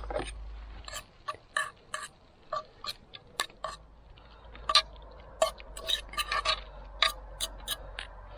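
A metal utensil clinking and scraping against a pot and a plate in a quick, irregular run of sharp clinks, as moose meat is spooned out and served.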